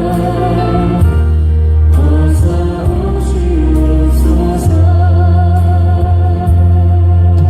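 A group of voices singing a hymn over instrumental accompaniment, with long, heavy bass notes held under the melody.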